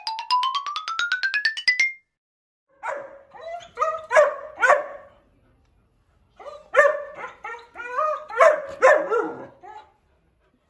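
A short rising electronic tone with rapid clicks for about the first two seconds, then a German shepherd puppy barking in short, high-pitched barks: a few at first, and a longer run after a brief pause.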